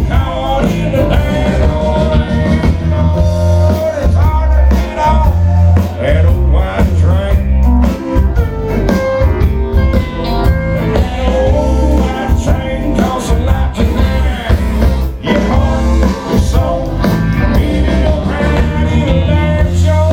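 Live country band playing at full volume: a male lead singer over electric guitars and a heavy bass line.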